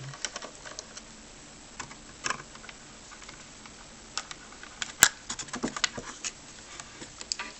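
Scattered small clicks and taps of plastic and metal parts being handled as a Bluetooth speaker is taken apart, with one sharp, louder click about five seconds in.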